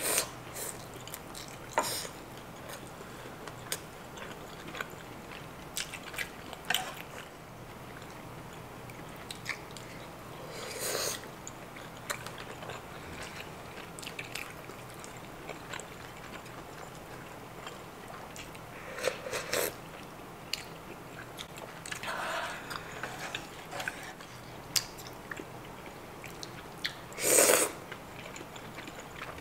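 Close-miked mukbang eating sounds: chewing a fried shrimp cutlet, with scattered mouth clicks and a few short slurps. The loudest, about two seconds before the end, is a slurp of creamy udon noodles.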